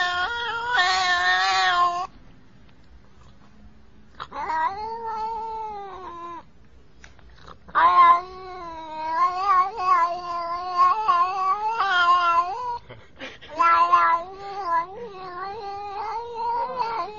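Domestic cat giving long, drawn-out meows in a row, their pitch wavering up and down so they sound almost like talking. Four calls with short pauses between, the longest running about five seconds.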